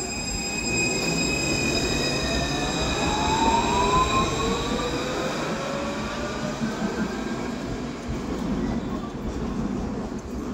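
Alstom Citadis 402 tram pulling away from a stop: its electric traction drive whines, rising in pitch as it accelerates, over high steady tones, and the sound eases off as the tram moves away.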